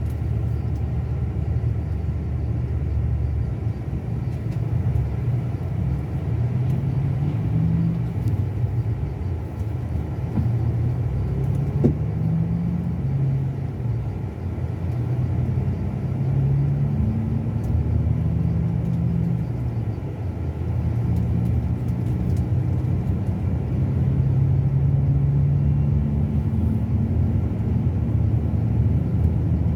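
Scania K360 coach's diesel engine running under way, a steady rumble whose pitch rises and drops back several times as engine speed changes.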